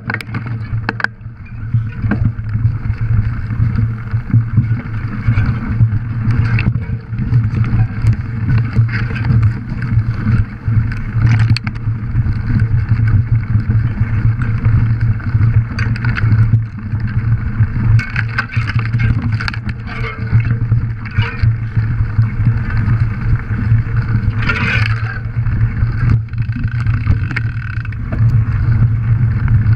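Bicycle riding fast over a forest trail: a constant low rumble of wind buffeting the camera microphone and tyres rolling over rough ground, with many small knocks and rattles from the bike. It gets a little louder near the end as the tyres reach a gravel track.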